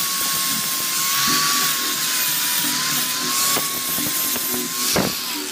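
Angle grinder with an abrasive disc running at speed against stainless steel square tubing: a steady high whine over a hiss of grinding. Near the end there is a sharp knock and the whine begins to drop as the grinder spins down.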